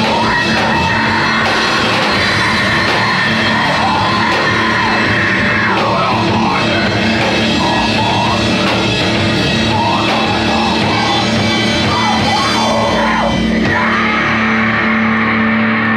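Loud heavy rock music with yelled vocals over the band.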